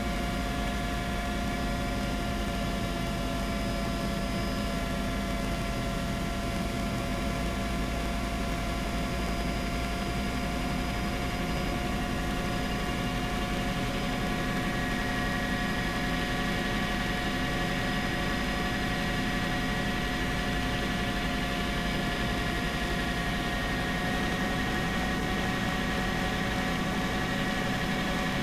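Helicopter in flight heard from inside the cockpit: a steady engine whine, with several held tones over a low rumble. The sound holds even throughout.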